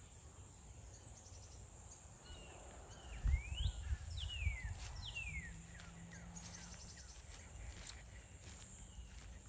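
Songbirds calling: a few slurred whistles that slide down in pitch, about three to five seconds in, with short quick high trills, over a steady outdoor background. A brief low rumble sounds under the whistles.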